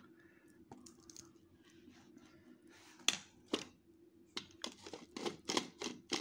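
Faint scraping as salt mixture is spooned into a glass jar, then a plastic blender blade unit twisted onto the jar's threads in a series of short, gritty scrapes about three a second.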